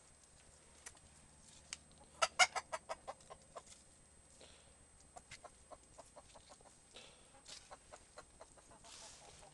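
Faverolles chickens clucking: a loud run of about eight short clucks about two seconds in, then a fainter, quicker string of clucks.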